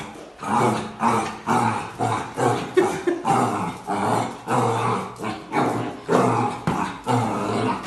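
Black puppy barking at its own reflection in a mirror: a quick string of short barks, about two a second.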